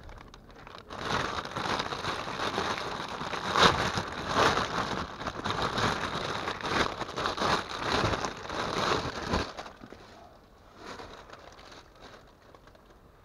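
Thin plastic bag crinkling and rustling as a new cabin air filter is pulled out of its packaging. The crackling starts about a second in and stops around nine and a half seconds, leaving faint handling sounds.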